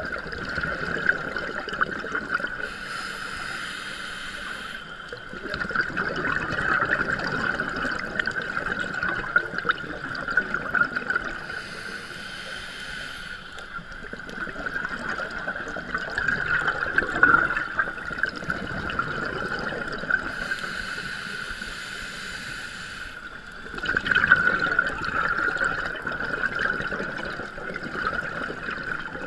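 Scuba regulator breathing underwater: three slow breaths, each a hissing inhale through the regulator followed by exhaled bubbles gurgling up for a few seconds. A steady high whine runs underneath.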